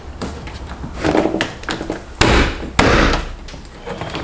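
Plastic tweeter trim piece being pushed and slid into the door's mirror corner: rubbing and knocking of plastic on plastic, with two louder scrapes about two and three seconds in.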